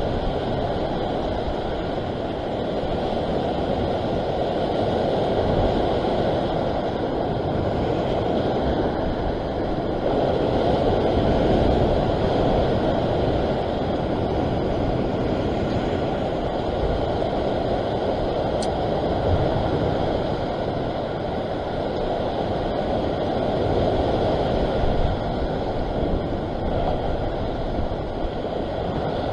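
Steady low rushing noise of sea surf and wind against the microphone, swelling and easing slowly.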